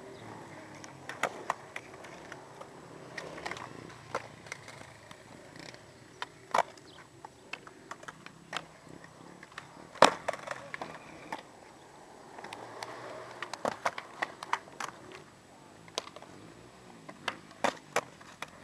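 Skateboard wheels rolling on hard ground, with sharp clacks of tricks being popped and landed; the loudest clack comes about ten seconds in, and a run of them comes near the end.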